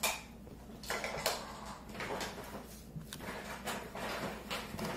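Felt-tip markers scratching on paper in short, irregular back-and-forth strokes as two people colour in a drawn letter.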